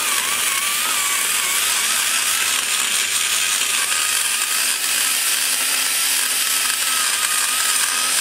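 Die grinder with a burr cutting the aluminum in the port bowl of a Chevy LT-1 cylinder head, running steadily under load. Its high whine wavers a little in pitch as the cutter bites.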